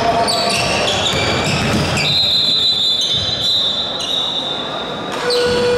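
Basketball game on a hardwood gym floor: sneakers squeaking in many short, high chirps and a ball bouncing, with a longer steady squeal for about two seconds in the middle.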